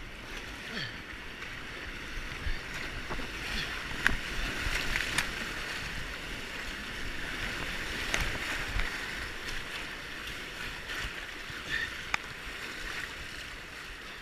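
Whitewater rapids rushing steadily around an inflatable kayak, with a few sharp knocks and splashes scattered through.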